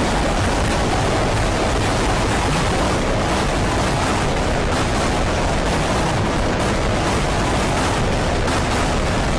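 Loud, steady, harsh noise with no pitch, rhythm or break, from a heavily processed, pitched-down audio edit.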